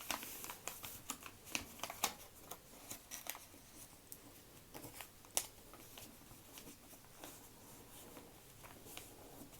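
A square sheet of origami paper being handled and folded, its creases inverted and collapsing: faint rustling and crinkling with scattered crackles and ticks, thickest in the first few seconds and with a sharper tick about two seconds and five seconds in.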